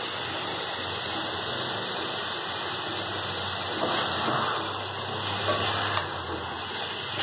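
Bitter gourd thokku sizzling in oil in a pan, a steady hiss, with a few light spatula scrapes and taps as it is stirred from about four seconds in.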